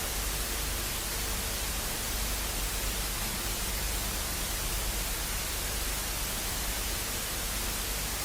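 Steady static hiss, even and unchanging, with a low hum underneath.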